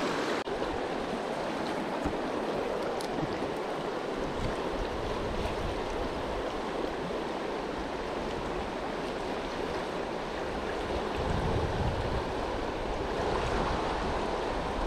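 Steady rush of a fast, high-running river current flowing past the bank.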